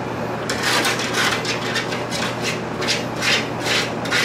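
A metal fork scraping browned drippings off the bottom of a hot baking pan, loosened with a little water to deglaze it for gravy, in quick back-and-forth rasping strokes of about two to three a second, starting about half a second in.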